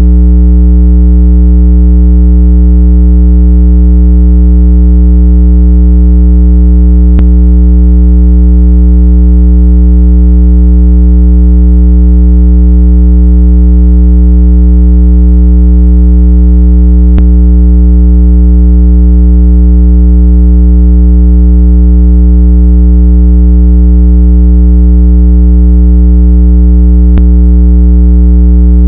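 Loud, steady synthetic low tone with a stack of overtones, played through a phone speaker to shake water out of it. A faint click comes about every ten seconds.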